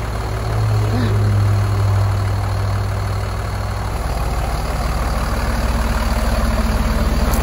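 Diesel engine of a Freightliner medium-duty service truck running steadily as the truck rolls slowly past close by, a deep even engine hum.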